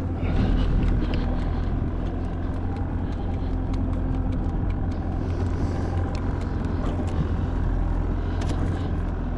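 Boat engine running steadily with an even hum, with a few light clicks and knocks over it.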